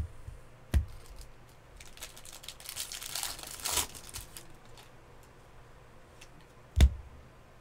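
Baseball trading cards being handled and flipped through by hand: a crinkling, rustling stretch about three seconds in, and a few soft thumps, the loudest near the end.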